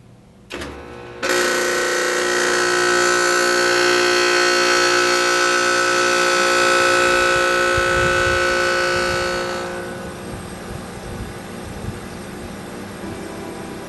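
Rheem dual-compressor air-conditioner condenser unit starting with a loud, harsh noise: several steady tones over a rushing sound begin about a second in, then ease to a quieter run near the end. The owner traces this start-up noise to liquid refrigerant collecting in the compressors while the unit sat off.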